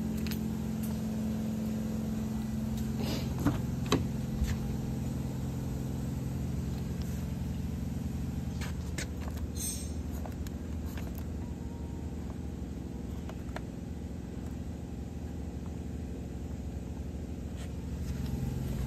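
A steady low mechanical hum that fades somewhat partway through and swells again near the end. A few sharp clicks and taps come about three to four seconds in and again around nine to ten seconds.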